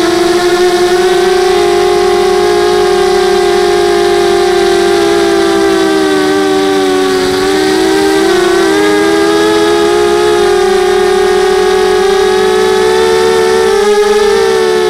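Motors and propellers of a 250-size FPV quadcopter whining steadily, heard through its onboard camera. The pitch wavers with the throttle, sagging and splitting into two close tones about seven seconds in, and dips briefly about fourteen seconds in before picking up again.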